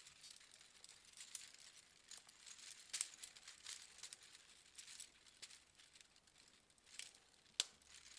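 Faint clicking and rustling of 3D-printed plastic Hoberman sphere links being handled and pushed together, with a few sharper clicks, the sharpest near the end.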